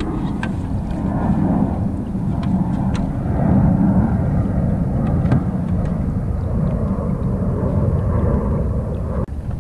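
Low, uneven rumble of wind buffeting an outdoor camera microphone, with a few faint clicks.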